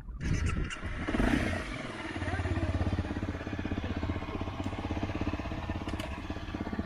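Small motorcycle engine starting up, rising briefly about a second in, then running at a steady idle.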